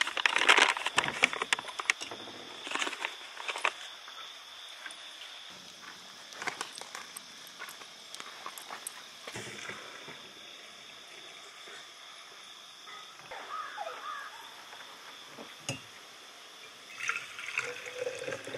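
Coffee being made in a glass French press: a coffee bag rustles and a spoon clicks as grounds are scooped in during the first few seconds. Hot water is then poured in from a steel pot, and near the end brewed coffee is poured into an insulated tumbler.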